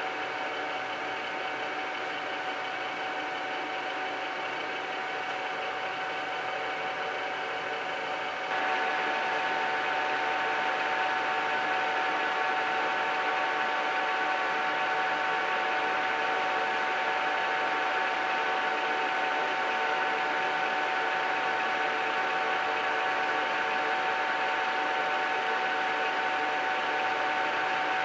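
Kingston HL4000 engine lathe running steadily with a whine of several held tones. About eight and a half seconds in it steps up louder, the whine stronger, and holds there.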